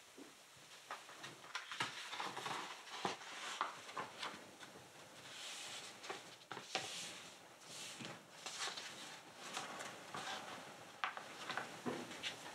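A sheet of paper being folded and creased by hand: soft rustling with many irregular sharp crinkles and small taps.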